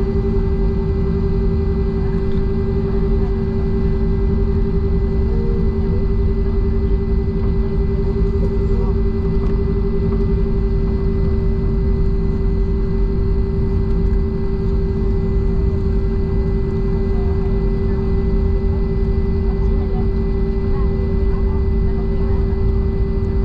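Airliner jet engine noise heard inside the passenger cabin: a steady low roar with a constant humming tone over it.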